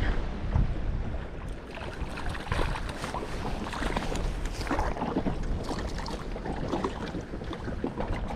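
Wind buffeting the microphone and lake water slapping against the side of a wooden rowing boat, with a hooked brown trout splashing at the surface beside the boat.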